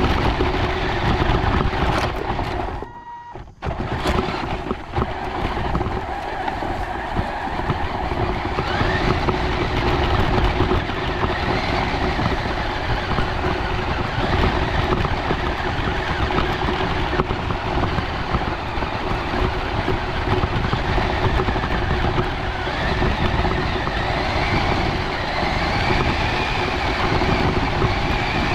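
RC car driving over grass, heard from a camera riding on it: the motor and gears whine, rising and falling in pitch with speed, over a steady rumble of the chassis and tyres on the grass. The sound drops out briefly about three seconds in.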